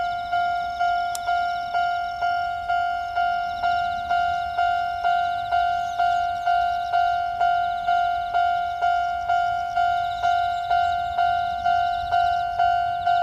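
Railway level crossing warning bell ringing, a steady repeated ding of about two strikes a second, each dying away before the next: the alarm that a train is approaching.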